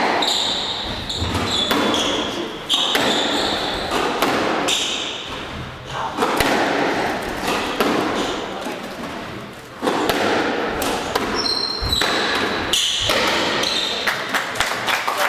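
Squash rally: the ball cracking off rackets and thudding against the court walls every second or so, with shoes squeaking sharply on the wooden floor, all echoing in the court.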